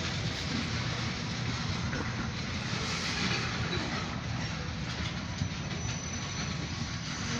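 Covered hopper cars of a long freight train rolling steadily past, a continuous rolling noise of steel wheels on the rails.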